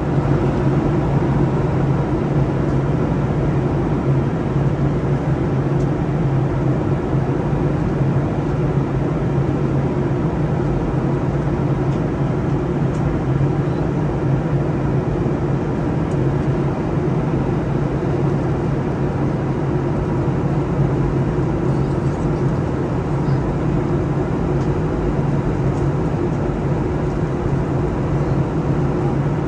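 Steady, unchanging low drone of a moving vehicle, with a strong low hum running under it.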